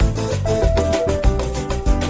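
Background music with a steady beat and sustained melody notes.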